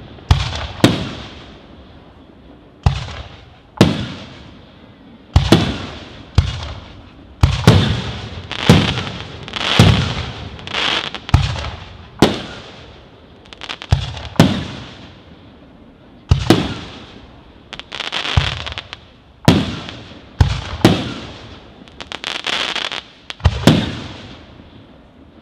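Aerial firework shells bursting in quick succession, about one sharp bang a second, each trailing off in a long echoing rumble, over a steady high crackling hiss. The bangs stop shortly before the end.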